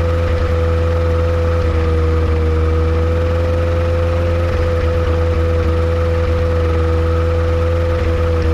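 Yamaha Apex four-cylinder engine on a Kitfox airplane running at a steady speed: a loud, even drone with a constant whine above it, no rise or fall. The engine is being run while troubleshooting a misfire that the owner suspects comes from a vacuum leak.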